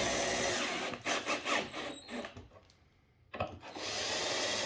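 Power drill driving bolts into the back of a TV to fix the wall-mount brackets. It runs in two spells, with a brief stop about three seconds in before it starts again.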